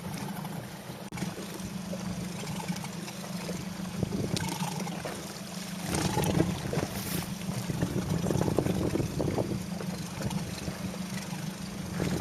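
Motorboat engine running steadily at low speed, with wind and water noise around it.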